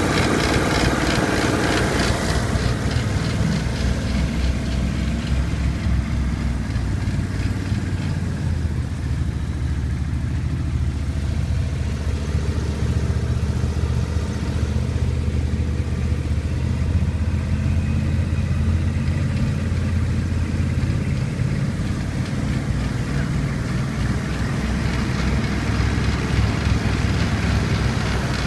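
Outboard motor of a small flat-bottomed boat running steadily under way through floodwater, heard from aboard the boat.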